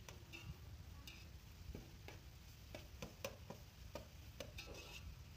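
Metal spatula stirring chopped vegetables in an aluminium pot: faint, irregular clinks and scrapes of metal on metal, two or three a second.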